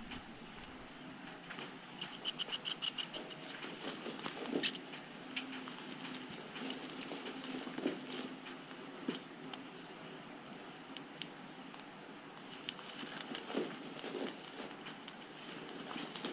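Eastern Phoebe nestlings calling. About two seconds in comes a rapid run of high, evenly spaced peeps lasting about two seconds, followed by scattered short high chirps and light clicks.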